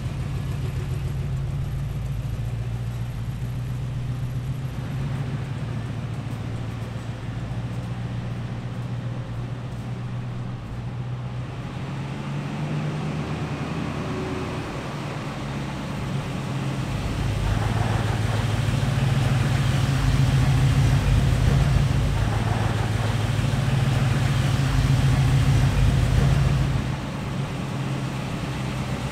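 Car engine running steadily, growing louder about halfway through and dropping back abruptly near the end.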